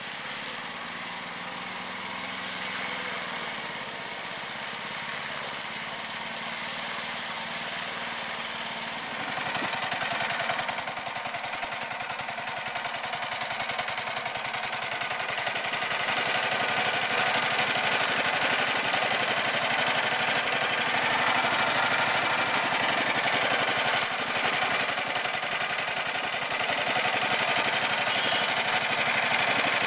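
Small 15 hp single-cylinder petrol engine on a bamboo raft running steadily, with a fast, even rattle of firing strokes. It is quieter and more distant for the first nine seconds or so, then close and loud for the rest.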